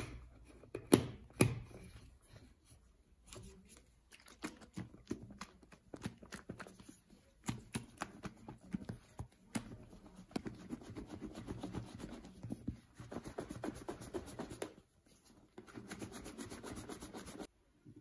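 A plastic shaker bottle of pancake mix, egg and water: a few sharp clicks as the red screw cap is twisted on, then the bottle shaken hard, the batter sloshing and rattling inside in a fast, even rhythm that stops suddenly near the end.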